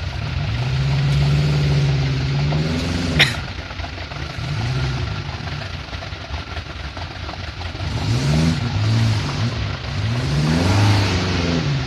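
Off-road vehicle's engine revving up and down several times, with one sharp click or knock about three seconds in.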